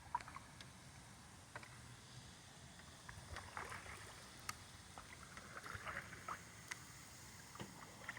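Faint paddling sounds from a small paddled boat: scattered light splashes and drips of water off the paddle, with a few small knocks.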